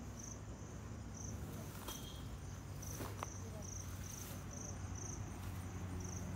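A cricket chirping in short high pulses, about two a second with brief pauses, over a steady low hum, with a couple of faint clicks about two and three seconds in.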